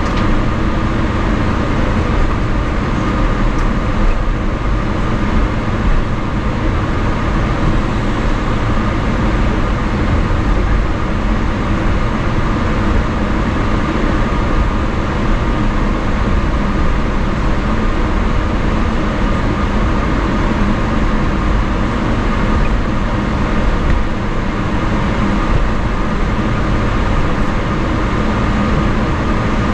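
Cabin noise inside a Boeing 777-300ER taxiing, its GE90-115B turbofan engines running steadily at low power: a loud, constant drone with a few held tones over a low rumble.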